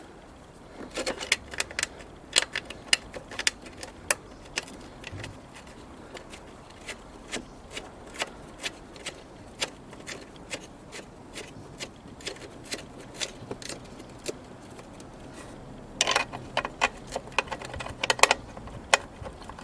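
Irregular clicks and clinks of hand tools and small metal parts being handled, busiest just after the start and again near the end.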